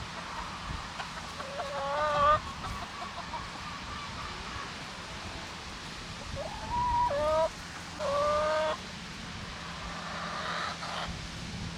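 Backyard chickens calling: a drawn-out squawk about two seconds in, then two more about seven and eight seconds in, the first of those rising in pitch.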